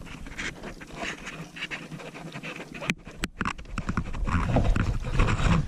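A man panting, breathing hard and winded from a long fight with a fish; a sharp click sounds about three seconds in.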